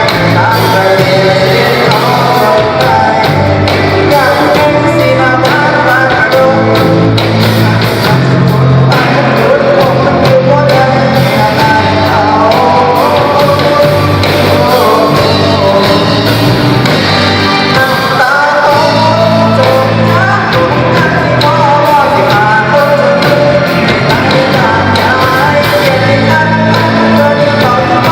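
Band playing a rock-style song with a lead vocal, loud and continuous over a steady bass line.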